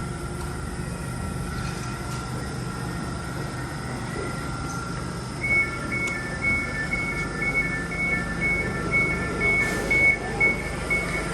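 Elizabeth line Class 345 train standing with a steady low hum. From about five seconds in, a rapid two-tone beeping starts, about two beeps a second, typical of the door-closing warning before departure.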